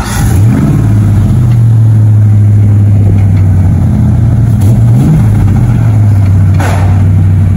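Ford Ranger's swapped-in 5.0 V8 idling steadily, with a short blip of the throttle about five seconds in.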